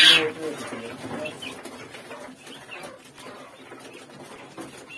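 Young quail in cages making soft calls and chirps, with a short clatter right at the start.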